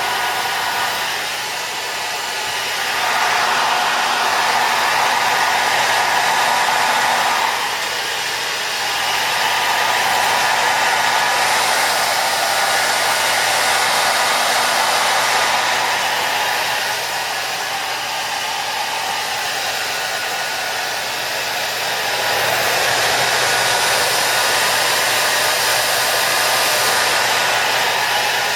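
Hair dryer blowing continuously with a steady rush of air and a faint motor hum, growing louder and softer several times.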